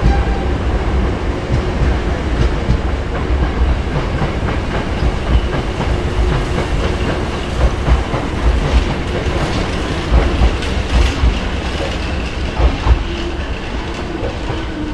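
Hankyu electric train pulling out of the platform, a heavy low rumble with wheels clattering over rail joints and points, the sound slowly fading as it draws away.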